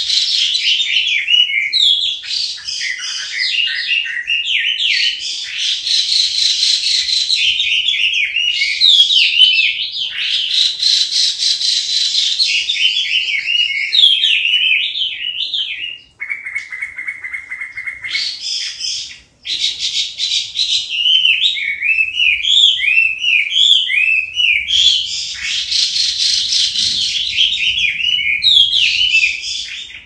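Male Chinese hwamei (melodious laughingthrush) singing loudly: a long, nearly unbroken run of varied, rapid whistled phrases. Just past halfway it breaks into a fast, low, even trill for about two seconds, then goes back to whistled phrases, and the song cuts off suddenly at the end.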